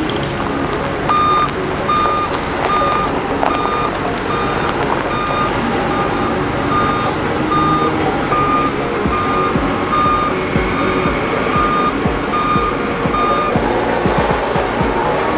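Back-up alarm of heavy road-construction machinery beeping steadily, a little more than once a second, over running diesel engine noise; the beeping stops near the end.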